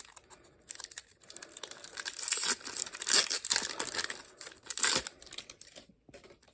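Foil wrapper of a Pokémon card booster pack crinkling and being torn open by hand, in irregular crackly bursts that die away near the end.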